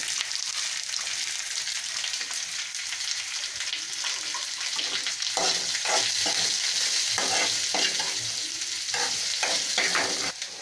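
Chopped onions sizzling in hot coconut oil in a kadai, with a spoon stirring and scraping against the pan. The scraping strokes come thick and fast in the second half, and the sizzle drops off just before the end.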